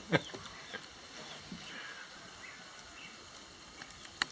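Faint background ambience with a few faint, short chirps and a single short, sharp click near the end.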